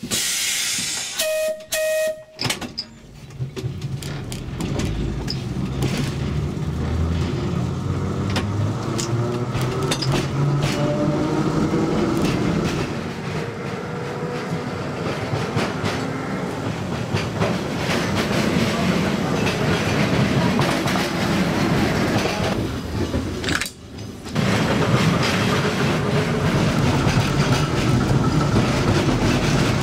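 Narrow-gauge electric tram running on rails: a steady rumble of wheels on track with the hum of the traction motor rising and falling. A short steady tone sounds about a second in, and the sound drops out briefly near the end before the running resumes.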